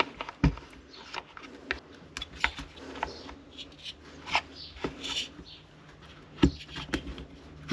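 Hands working a rubber mount free and easing a chainsaw's engine unit out of its plastic housing: scattered clicks, knocks and rubbing of plastic, rubber and metal. A sharper knock comes about half a second in and another near the end.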